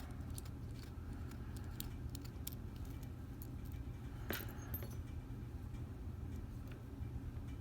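Faint small metallic clicks and clinks from a padlock core and its tiny pins being handled, with one sharper click about four seconds in, over a steady low hum.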